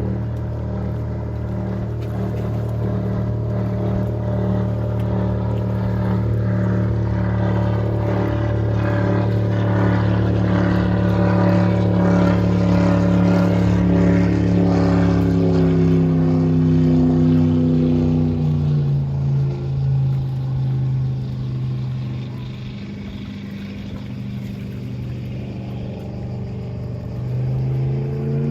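MerCruiser 496 Mag 8.1-litre V8 of a Baja 232 speedboat running under load. The engine note holds high for a long stretch, drops as the throttle comes off after about sixteen seconds, runs lower and quieter, then climbs again as it is revved back up near the end.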